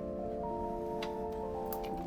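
Background music: a slow melody of held notes, with a few sharp clicks over it.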